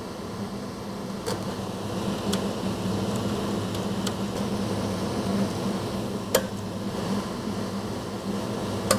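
A steady mechanical hum throughout, with a few short, sharp light clicks from a small torque screwdriver turning screws into the robot's metal panel.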